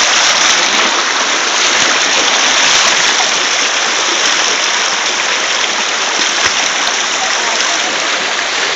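Shallow stream rushing over rocks in small cascades: a steady, loud rush of white water.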